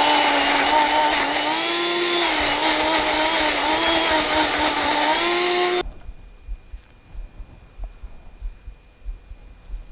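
Countertop blender running at full speed as it purees tofu into a thick sauce, its motor hum wavering and rising in pitch as the load shifts, then cutting off suddenly about six seconds in. Faint soft knocks follow.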